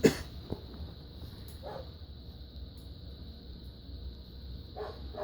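A dog barking: one loud bark right at the start, then a few short, fainter barks spaced one to three seconds apart.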